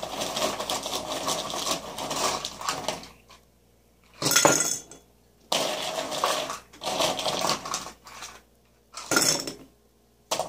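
Ice cubes clattering and clinking as they are dropped into a tall drinking glass, in several bouts with short quiet pauses between, including two sharp louder bursts.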